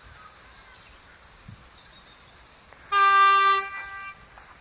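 Train horn sounding one short blast about three seconds in: a single steady tone, loud for under a second, then tailing away.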